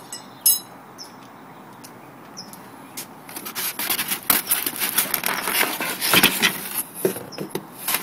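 A sharp clink about half a second in. Then, from about three and a half seconds, a dense run of irregular scraping, rubbing and squeaking as hands handle parts in styrofoam packing inside a cardboard box.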